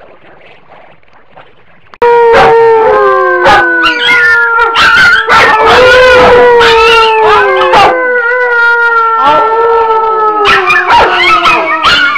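Several dogs howling together in long, slowly falling notes that overlap one another, with short yips and barks cutting in. It starts suddenly about two seconds in after a quiet start.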